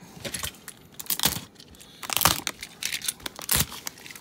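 Plastic and padded mailer packaging crinkling and rustling as it is handled, in irregular bursts with a few louder crackles.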